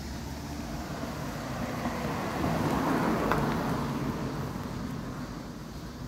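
A car driving past on the road, its noise swelling to a peak about halfway through and then fading away.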